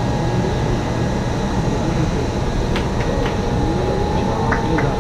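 Steady hum of a stopped Kintetsu 80000 series 'Hinotori' electric train and its air conditioning at a station platform, under crowd chatter. A few sharp clicks come around the middle and again near the end.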